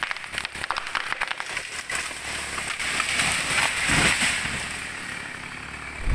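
A felled tree giving way: a quick run of sharp cracks as the wood fibres snap, then a swelling rush of branches and leaves as it falls, fading off. A heavy crash of the tree hitting the ground begins at the very end.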